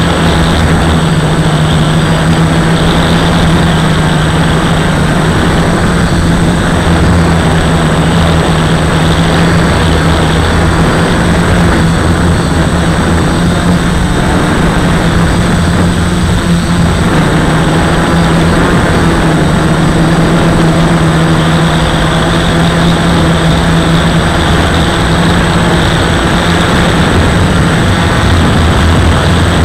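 Flying3D X8 quadcopter's motors and propellers buzzing steadily in flight, heard close up through the onboard camera's microphone. The pitch wavers slightly as the throttle changes.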